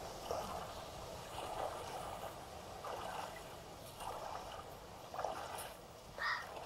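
Faint river water lapping and trickling at the bank in soft, irregular splashes, with a brief higher-pitched sound near the end.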